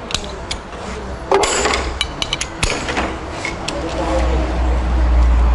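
Metal clinks and knocks of a wrench and hand tools on the camshaft gear bolts of a Hyundai D6CB diesel engine, with a sharp knock about a second and a half in and a run of quick clicks just after. A low rumble builds in the background about four seconds in.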